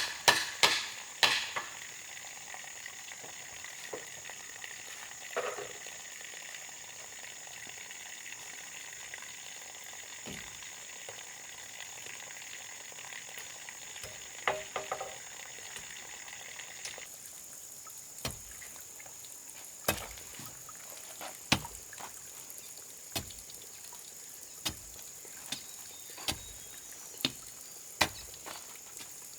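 Sharp knocks, a cluster at the start and then about one every second and a half in the latter half, over a steady high hiss that partly cuts off suddenly about 17 seconds in.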